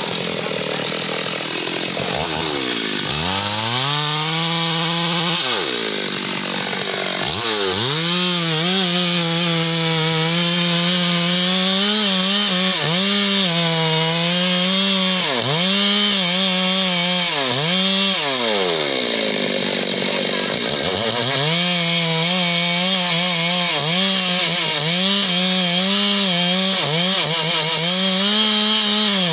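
Two-stroke chainsaw cutting into the base of a large teak trunk to fell it. The engine runs at high speed, its pitch dipping again and again as the chain bites into the wood and recovering as it eases off, with longer slow-downs a few seconds in and about two-thirds of the way through.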